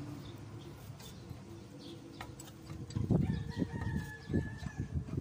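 A rooster crows about three seconds in, one long held call, over a run of dull knocks.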